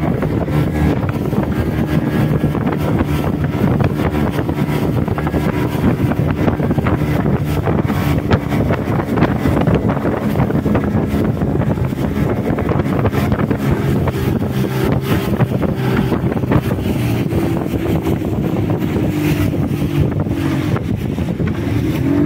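A boat's engine running steadily under way, over the rush of wind on the microphone and water against the hull.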